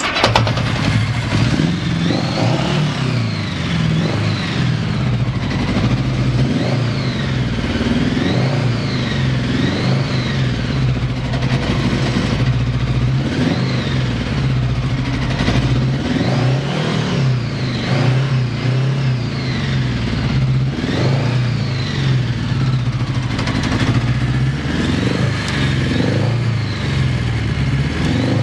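Honda GL1100 Gold Wing flat-four engine running, its pitch rising and falling again and again as it is revved up and down. The sound comes in abruptly at the very start. The seller lists the engine as running without abnormal noise, with even compression on all four cylinders.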